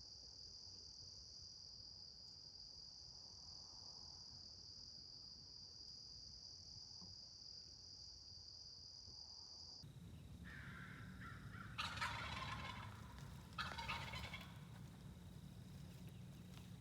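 Insects buzzing steadily at a high pitch for about ten seconds. Then, after an abrupt change, a wild turkey gobbler gobbles twice, a rapid rattling call, about two seconds apart.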